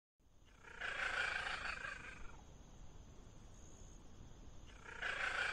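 Cat giving two long, drawn-out calls, the first about a second in and the second starting near the end, over a faint steady hiss.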